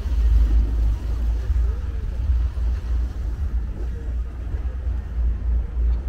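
Wind buffeting the microphone in a gusty low rumble, with faint voices of people in the background.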